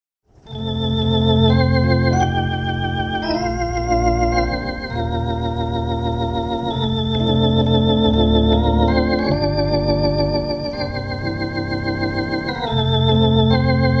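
Hammond organ chords played through a Leslie speaker's spinning treble horn, the sustained notes wavering in a swirling tremolo. The chords change every second or two over held bass notes, starting about half a second in.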